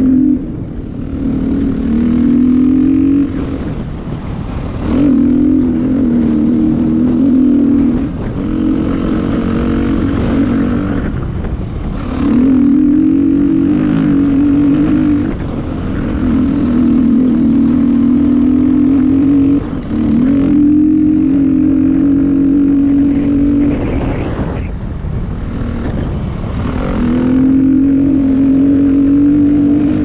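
Husqvarna dirt bike engine under way on a rough trail, heard close up. The throttle opens in pulls of a few seconds, the engine note rising slightly during each, then backs off between them, about eight times in all.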